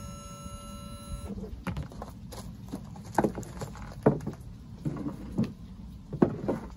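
Background music with held tones that stops about a second in, followed by a series of knocks and clatters as a plastic parts tray and an oil bottle are picked up and set down on a plywood board.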